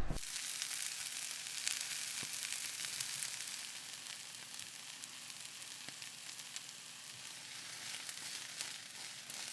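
Cut-up bacon frying in a pan: a steady sizzle with many fine crackles and pops.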